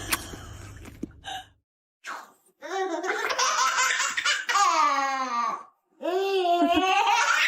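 High-pitched laughter in two long bouts, the pitch sliding up and down, starting about three seconds in after a brief gap.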